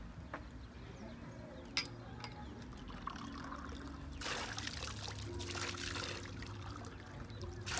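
Water from an outdoor tap running into a container, much louder from about four seconds in. A single sharp click comes about two seconds in.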